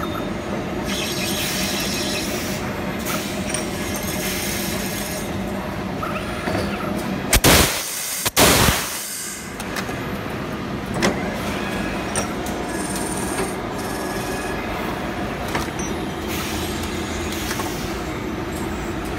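Metal lathe running steadily with a constant hum as it threads the end of a steel tube. About eight seconds in come two loud bursts of hiss in quick succession.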